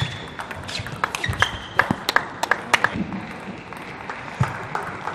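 Table tennis rally: the ball clicking off rackets and the table in quick, irregular succession, thinning out near the end, with a few short high squeaks of shoes on the floor.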